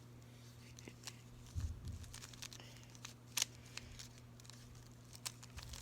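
3x3 Rubik's Cube being twisted while it is solved: scattered sharp plastic clicks of the layers turning, with a couple of soft thuds about a second and a half in, over a faint steady hum.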